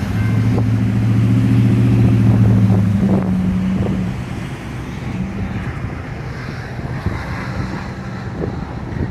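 Deep diesel engine drone from the departing freight train's locomotives, strongest at first and fading away after about three to four seconds, over a steady rumble with wind on the microphone.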